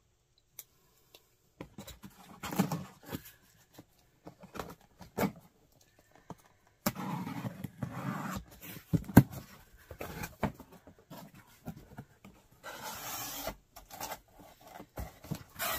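A knife slitting the packing tape on a cardboard box, then the cardboard flaps scraping and rustling as the box is opened, with scattered sharp clicks and knocks.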